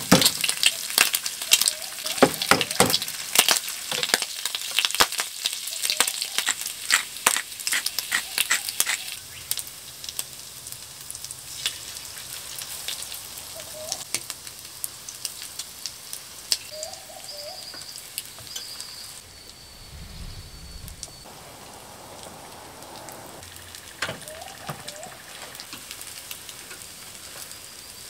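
Food frying in a pan over a cooking fire. Dense sharp spitting crackles for the first nine seconds or so, then the pan settles to a quieter, steady sizzle.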